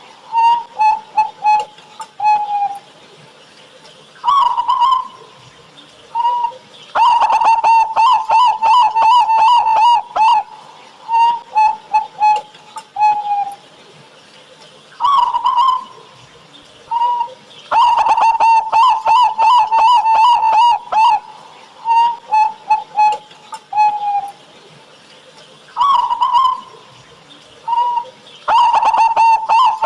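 Zebra dove (perkutut) cooing, the same song repeated three times. Each phrase runs as a few short coos, a higher rising note, then a long, fast rattling trill of coos lasting about three seconds, with pauses between.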